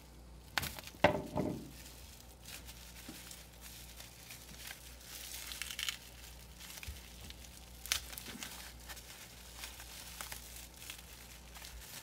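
Bubble wrap crinkling and rustling as packing tape around it is slit and torn with a knife. The loudest moment is a sharp snap and short rip about a second in, with a single sharp click later on.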